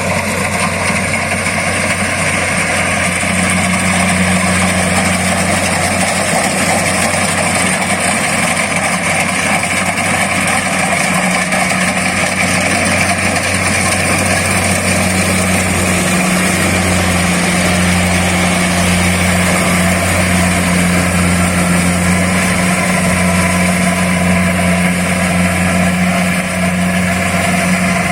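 Kubota DC-70 Plus combine harvester running steadily: a constant diesel engine drone with an even mechanical whir above it.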